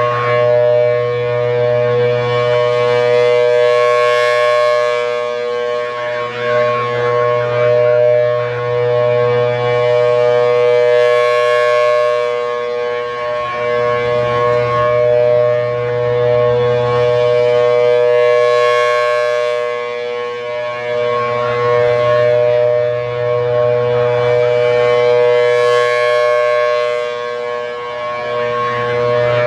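Federal Signal Thunderbolt 1000AT outdoor warning siren sounding its steady alert signal, a two-note chord from its 4/5-port rotor. The sound swells and fades about every seven seconds as the rotating horn sweeps past.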